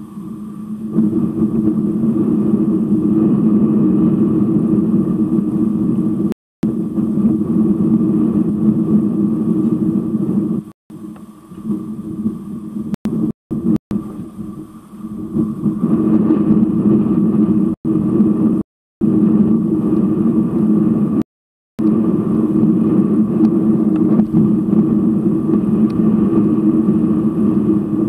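A loud, steady, low droning hum with a fainter higher tone over it. It cuts out completely for brief moments several times.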